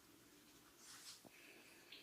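Near silence, with faint soft rubbing of a barber's hands during a massage and one light click a little over a second in.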